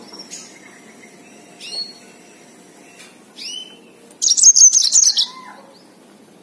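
Yellow-fronted canary (Mozambique canary) giving three short high chirps, then about four seconds in a loud, rapid trilled burst of song lasting about a second.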